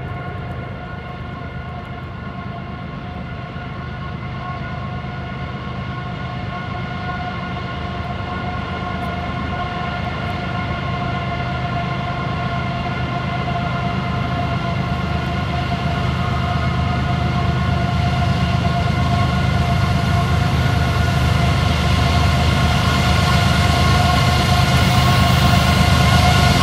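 Approaching CSX freight train's diesel locomotives, a low engine rumble with a steady, high siren-like whine over it, growing steadily louder. The whine is the sound of a blown turbocharger on one of the CW44AC units, which sounds awful.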